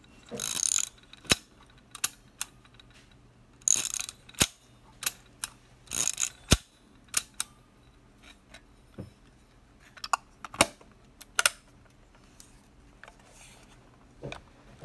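Konica Auto S rangefinder film camera worked by hand. Three times, a short ratcheting rasp of the film advance being wound is followed by the sharp click of the leaf shutter firing, then several more single sharp clicks and a few softer handling clicks.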